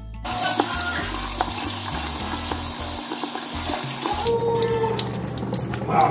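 Kitchen sink faucet running onto sliced sweet peppers in a bowl, water rushing and splashing as they are rinsed; the rush drops off about four seconds in.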